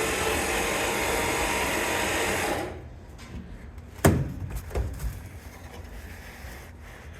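The feed wagon's lift chain being run around by its drive, a steady mechanical whir that cuts off abruptly about two and a half seconds in. A sharp clank about four seconds in and a few light knocks follow.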